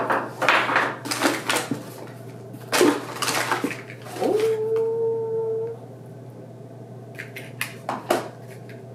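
Packaging crinkling and rustling in two bursts as it is handled. Then one long whine-like call glides up and holds a steady pitch for about a second and a half.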